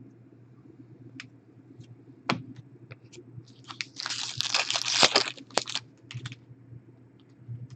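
Trading cards being handled, with scattered light clicks and taps and about a second of crinkling packaging a little after the middle.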